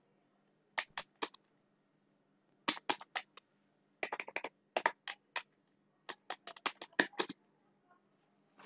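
Typing on a computer keyboard: quick runs of key clicks broken by short pauses, stopping a little over a second before the end.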